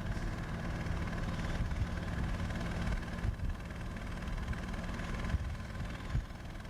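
A heavy engine running steadily with a low hum, with a few brief knocks partway through.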